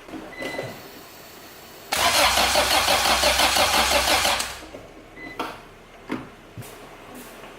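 Acura Integra engine being cranked over by its starter for about two and a half seconds, with an even rhythmic pulsing, and not catching: a crank-no-start caused by no spark at the plugs or ignition. Small knocks and clicks come before and after.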